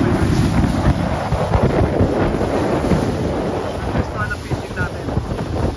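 Wind buffeting the microphone over the rush of water past a speedboat running across choppy sea, gusting irregularly.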